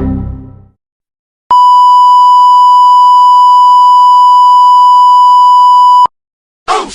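A loud, steady, pure beep tone at about 1 kHz, held for about four and a half seconds and cut off sharply: the classic censor bleep sound effect.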